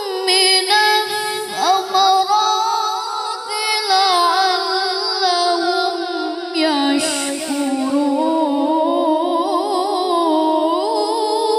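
A boy reciting the Quran in the melodic tilawah style into a microphone: long held notes with wavering, ornamented melismatic runs, sung without pause.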